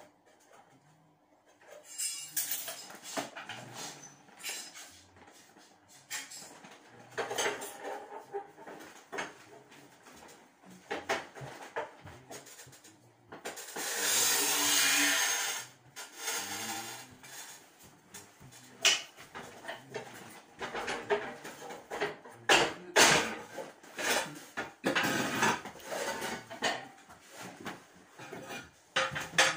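A hand tool scraping and clinking against a bucket in irregular knocks and scrapes. About halfway through comes a harsh rushing noise lasting about two seconds.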